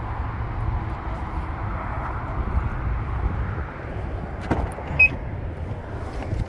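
Steady rumble and hiss of traffic, then the door of a Bentley convertible opening: its latch clicks about four and a half seconds in, a short high chirp follows half a second later, and another sharp click comes near the end.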